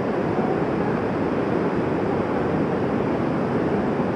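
Swollen mountain stream rushing over rocks in a steady, unbroken noise, the water risen high after heavy rain.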